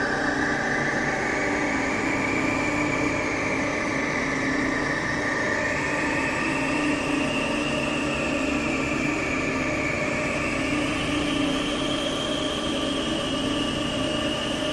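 Dark ambient noise drone: a dense, steady wall of noise over a held low hum, with a high whistling tone that slowly wavers and climbs in pitch.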